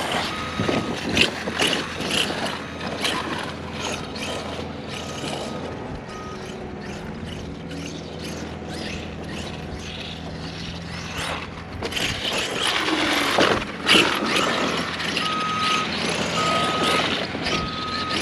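A 1/5-scale Arrma Outkast 8S RC truck's brushless electric drivetrain whining and its tyres churning soft dirt as it drives, with bursts of throttle, the strongest about two thirds of the way through. Short beeps of one steady pitch, about a second apart, sound a few times, three of them near the end.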